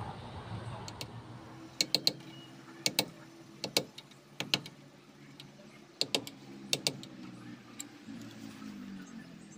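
Sharp metal taps, mostly in quick pairs, a dozen or so in all: a new axle oil seal being tapped home into a Multicab's rear axle housing with a tool.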